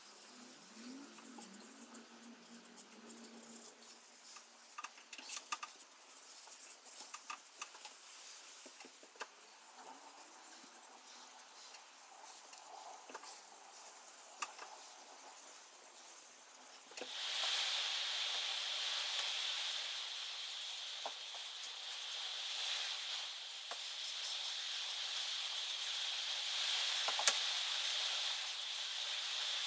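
Steel wool and a rag rubbing wood stain into a wooden chair frame: soft scratchy rubbing with small scattered clicks. A bit over halfway through, a steady hiss comes in suddenly and stays, louder than the rubbing.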